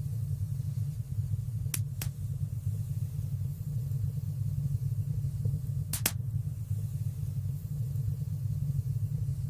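Wood fire burning in a fireplace: a steady low rumble of flames with a few sharp crackling pops, two close together about two seconds in and two more about six seconds in.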